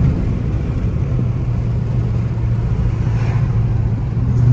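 Dodge Charger Daytona R/T's V8 engine pulling at a steady cruise under road rumble, heard from inside the cabin. At the very end the engine note starts to climb as the car accelerates.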